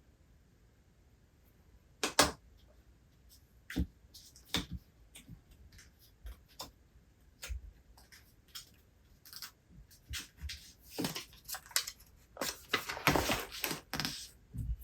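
Handling sounds at a reading desk: a string of small taps and clicks starting about two seconds in, growing into a denser stretch of rustling near the end.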